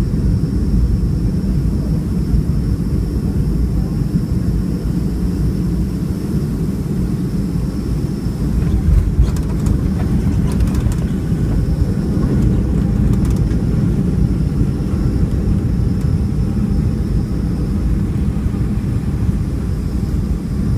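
Boeing 757-200 airliner's steady engine and airflow roar heard from inside the cabin during the landing, with a faint high whine above it and a few light rattles about halfway through.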